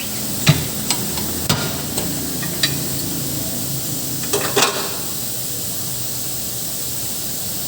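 Scattered sharp knocks and clicks from tire-shop work, with a short rattling cluster about four and a half seconds in, over a steady hiss.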